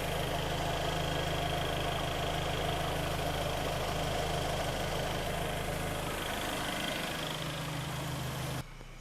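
Kia Sportage's freshly rebuilt four-cylinder petrol engine idling steadily while it warms up, its new pistons and rings bedding in. The sound drops sharply near the end to a quieter hum.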